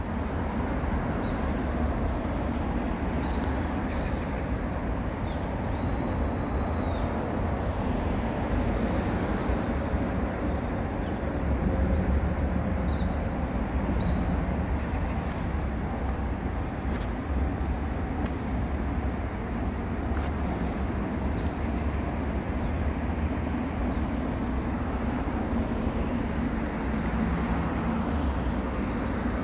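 Steady rumble of road traffic, heavy in the low end, with no single vehicle standing out.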